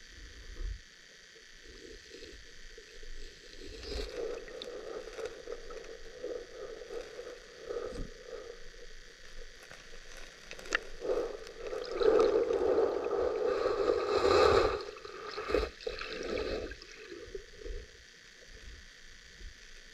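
Creek water heard underwater: a muffled gurgling and sloshing that swells up about 4 seconds in, is loudest a little past the middle and dies down near the end. A few sharp knocks are scattered through it.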